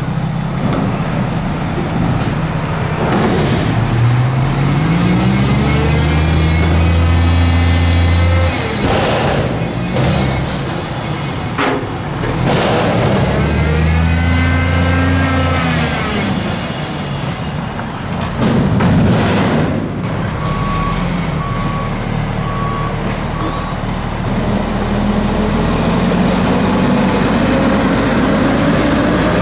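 Mack MR front-load garbage truck with a McNeilus Pacific body emptying a commercial dumpster. The engine revs up and holds a loud, steady load twice to drive the hydraulic lift arms, with several sharp bangs as the container is shaken out over the hopper and set back down. A little after the middle a reversing alarm beeps about four times, and near the end the engine pitch rises as the truck pulls away.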